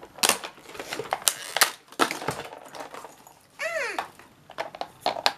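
Small plastic toy pieces clicking and clattering as they are handled and pulled from a cardboard packaging insert. A short vocal sound comes a little past halfway.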